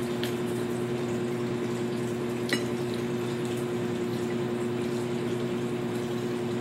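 A steady hum with an even hiss behind it, from a running household appliance, with one small click about two and a half seconds in.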